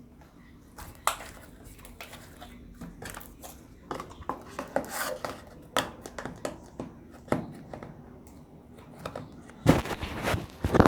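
Irregular clicks, taps and clatter, like utensils knocking in a dish, growing busier partway through, with a louder cluster of knocks near the end.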